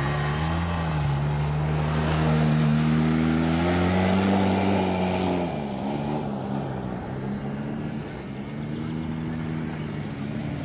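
Quad bike engine running hard at a steady pitch that rises slightly, then eases off about five and a half seconds in and runs on lower and quieter.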